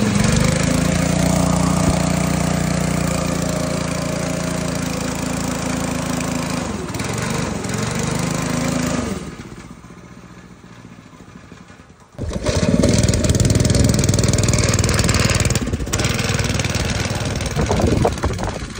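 Small single-cylinder go-kart engine running with its rear wheel spinning free; its pitch dips and comes back up about seven seconds in. The sound drops low for a few seconds, then the engine is loud again from about twelve seconds.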